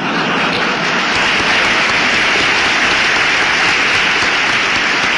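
Audience applauding: dense, steady clapping that swells up just before and holds evenly.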